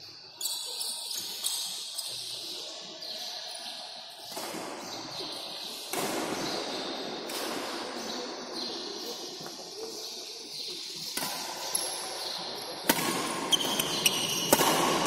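Badminton rally: a quick run of sharp racket strikes on a shuttlecock near the end, with a short shoe squeak on the court floor, over a steady background hiss in the hall.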